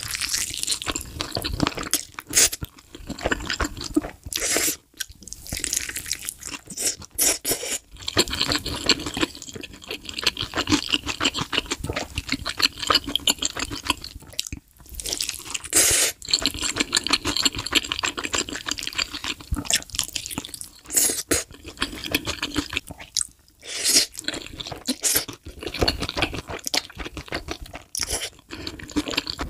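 Close-miked eating: crisp, saucy fried chicken drumsticks wrapped in noodles, bitten and chewed in big mouthfuls, with dense wet crunching and chewing. There are a few short pauses between bites.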